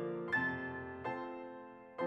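Background piano music: a few notes struck and left to ring, dying away toward the end.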